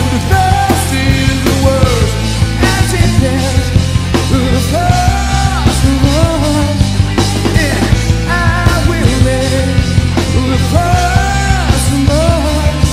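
Rock band playing live, with drum kit, electric bass and electric guitars, and a lead vocal over them.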